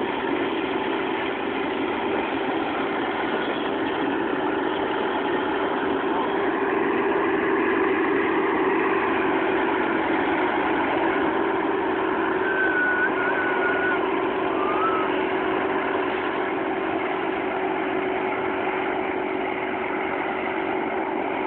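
Self-propelled forage harvester running under load while chopping grass and blowing it into a trailer: a steady machine drone with a constant low hum.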